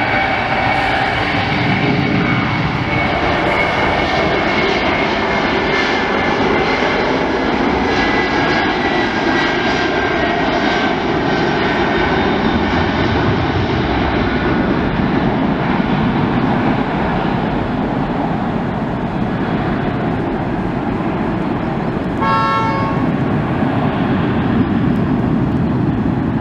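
Airbus A300's two turbofan engines at takeoff thrust as it rolls down the runway and climbs away: a loud, steady jet noise with whining tones that slowly fall in pitch. A short pitched tone sounds about 22 seconds in.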